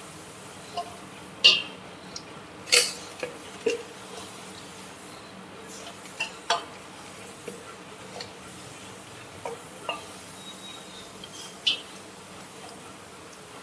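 Hands rubbing lemon juice into a raw whole chicken in a dish: irregular clinks and knocks as the bird and dish are handled, a few of them sharp, over a faint steady hum.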